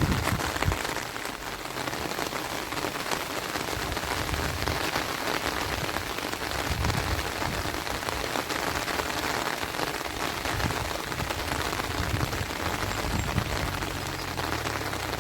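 Light, steady rain falling, a fine drizzle, with an uneven low rumble underneath.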